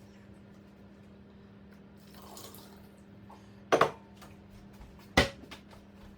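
Kitchen dishes and utensils being handled: a double clunk a bit over halfway through and a single sharp knock about a second and a half later, over a faint steady hum.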